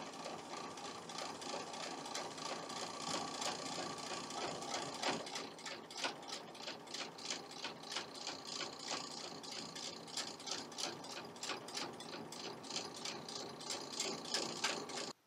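Electric sewing machine stitching slowly, its motor whining steadily under the clicking of each needle stroke; it stops suddenly just before the end.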